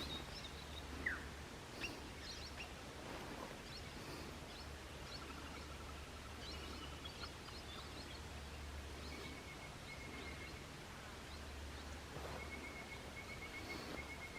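Faint outdoor chorus of small birds chirping and calling, with a high pulsed trill repeating through the second half.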